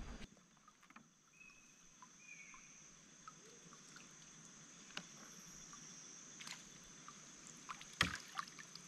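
Faint handling sounds of a trammel net being hauled hand over hand into a wooden canoe: light drips and small clicks, with one sharper knock about eight seconds in. A steady high insect buzz runs underneath.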